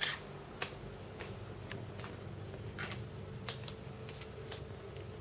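About a dozen short, sharp clicks at irregular intervals, the first the loudest, over a faint steady low hum.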